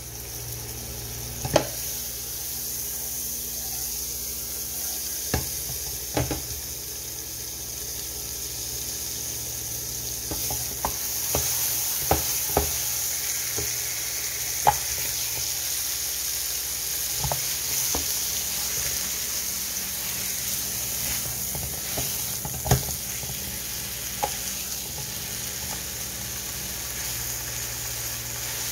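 Brisket slices frying in butter in a nonstick frying pan, a steady sizzle with scattered sharp clicks.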